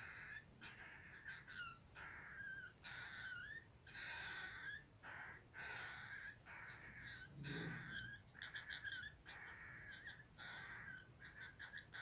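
Baby cockatiel giving repeated harsh begging calls, one or two a second, each short and bending in pitch, while it takes formula from a feeding syringe and tube: the feeding response of a hand-fed chick.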